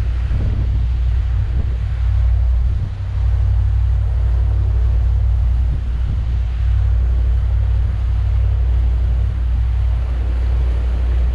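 Sea Ray 330 Sundancer cruiser underway: a steady low rumble of its 7.4-litre (454) MerCruiser inboard power and water along the hull, with wind buffeting the microphone. The rumble dips briefly about three seconds in.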